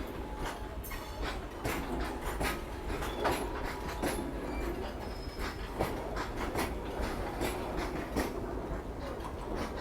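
Freight train wagons rolling past on the track, the wheels clicking sharply and irregularly, several clicks a second, over a steady rumble.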